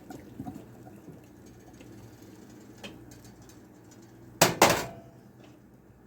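Two loud metal clanks in quick succession, a cooking pot being knocked or set down, each with a brief ring. A faint click comes a little before them.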